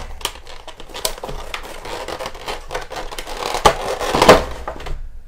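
Clear plastic blister tray of a card box being pressed and handled, crinkling and clicking, with two louder crackles late on.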